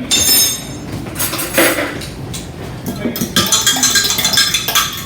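Metal utensil clinking against a bowl, then from about three seconds in rapid, continuous tapping of a utensil in the bowl as eggs are beaten lightly.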